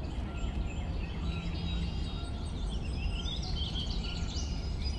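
Steady background noise with birds chirping, a flurry of short high chirps in the middle of the stretch.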